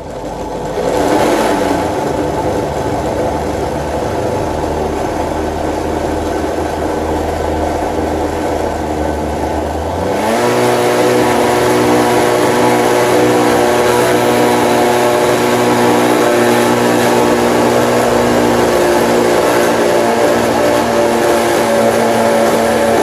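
Oster countertop blender motor running, blending a fruit smoothie. It comes up to speed at the start, then about ten seconds in its pitch steps up and it gets louder, and it runs steadily from there.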